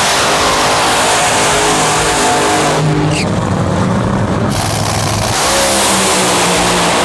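Top Fuel dragster's supercharged, nitromethane-burning V8 engine running very loud during a run at the drag strip, a dense roar without letup.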